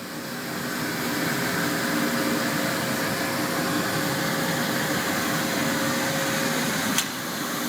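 CNC router running steadily while machining plasterboard, with the vacuum hold-down and extraction noise, under a faint steady hum. The hum stops about seven seconds in, with one sharp click.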